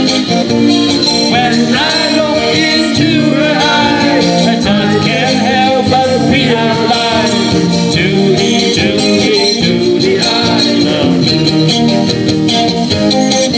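Live pop band music: a drum kit keeping the beat under guitar and a melody line that bends in pitch.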